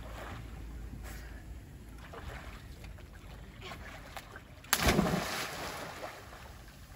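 A person jumping off a concrete pier into the sea: one loud splash about five seconds in, after low background noise.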